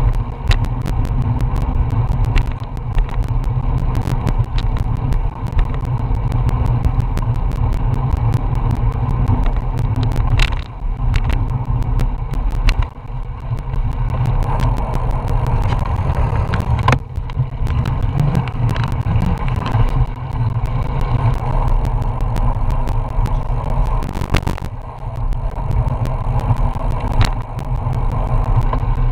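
Wind buffeting the microphone of a bicycle-mounted action camera while riding: a loud, steady low rumble, with frequent small irregular clicks and rattles from the bike and mount over the road surface.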